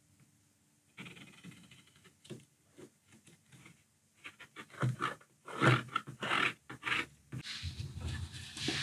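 A drafting compass and pencil scratching on a cardboard sheet as circles are scribed: faint, irregular strokes, with a few louder scrapes and knocks in the middle.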